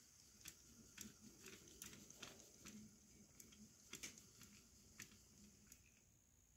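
Faint, irregular clicking of HO scale model train wheels running over the rail joints, roughly one or two clicks a second, with a faint steady high whine underneath.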